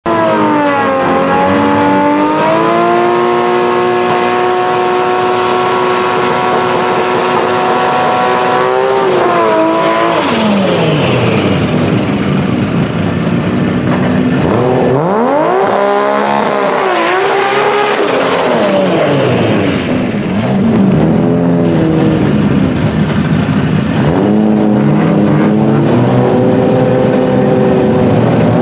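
Nissan Skyline GT-R's twin-turbo straight-six revving hard and held at high revs for several seconds during a burnout, with some tyre squeal. It then drops, is blipped up and down, and settles to a lower steady rev before rising again near the end.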